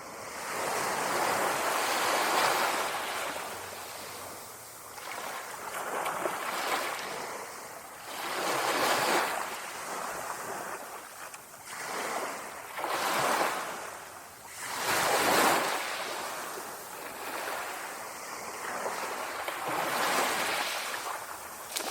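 Small sea waves lapping and washing on the shore, each swelling and fading every few seconds, with a light breeze.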